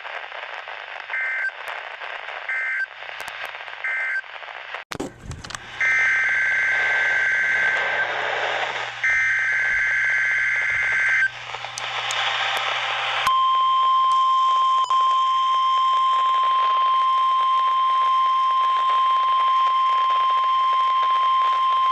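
NOAA Weather Radio test signal heard over a weather radio receiver with background hiss. First come three short bursts of the warbling SAME digital data tones, then a click. Two longer data-header bursts follow, and about 13 seconds in the steady single-pitch weather radio warning alarm tone starts and holds.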